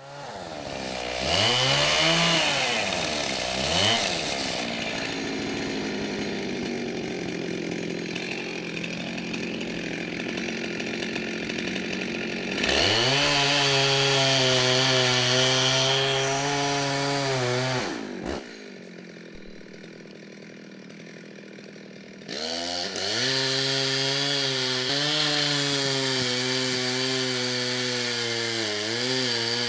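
Two-stroke chainsaw starting up and revving twice, then cutting a tree for its felling cut. The engine runs high for several seconds, drops back to idle about 18 seconds in, and revs up again about 22 seconds in.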